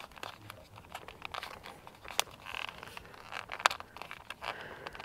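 Scattered light clicks and crinkling as insulated wires are pressed by hand into an adhesive trim channel along the camper's edge, with one sharper click about three and a half seconds in.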